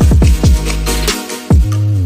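Electronic background music with a heavy beat: deep bass drum hits that drop in pitch, a sustained bass line and hi-hats.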